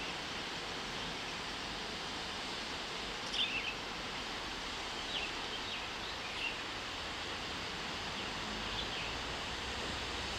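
Steady, even rushing of a waterfall heard from a distance, with a few short bird chirps scattered through the middle.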